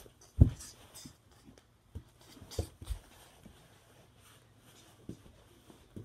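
Irregular dull thumps and knocks from the wooden rockers of a plush rocking elephant being rocked hard on a carpeted floor, the loudest about half a second in.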